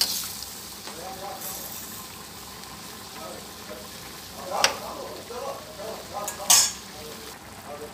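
Shrimp sizzling in a little liquid in a stainless steel wok, stirred with a metal spoon that scrapes the pan. Two sharper clanks of metal on the wok, about four and a half and six and a half seconds in, are the loudest sounds.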